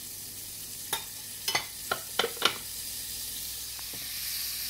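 Butter sizzling and foaming in a hot cast-iron skillet, a steady high hiss that grows a little louder near the end. A silicone spatula stirring it knocks against the pan in a quick run of sharp clicks in the first half.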